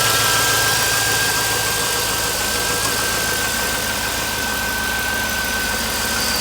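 Chevy 5.3-litre V8 truck engine running steadily, breathing through a newly fitted Marsflex 4-inch cold air intake, with a thin steady high tone over it.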